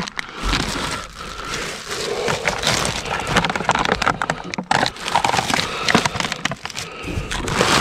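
Rummaging through produce and packaging in a dumpster: rustling and a dense, irregular run of knocks and cracks as items are shifted about.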